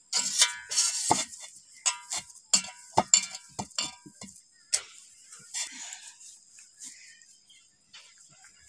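A quick run of sharp knocks and ringing clinks from a large aluminium bowl as dough is pinched off and handled in it, thinning out about halfway through. A steady high insect chirring runs underneath.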